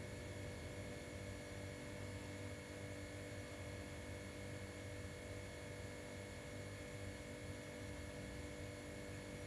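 Steady electrical hum over a faint hiss, several constant tones holding unchanged throughout.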